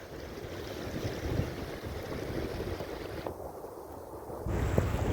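Wind buffeting the microphone over a steady rush of water, the wind gusting louder near the end.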